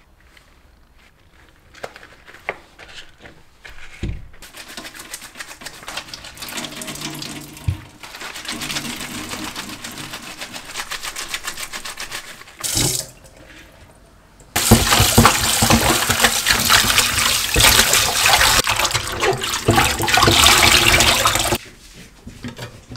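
A wet dishcloth being rubbed and lathered with a bar of soap at a stainless steel sink, with soft rubbing and squelching. About fourteen seconds in, a tap runs loudly for about seven seconds and then stops abruptly.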